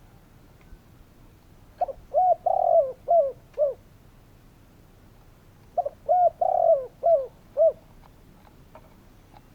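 Spotted dove cooing: two phrases about four seconds apart, each a quick run of short coos with a longer, rougher middle note.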